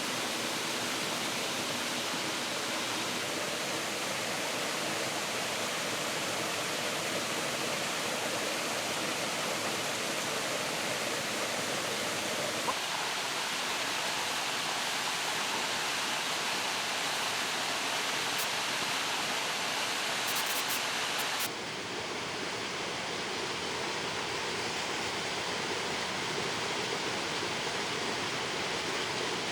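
Steady rushing noise of flowing water, like a stream or small waterfall. Its tone shifts abruptly about 13 seconds in and again about 21 seconds in.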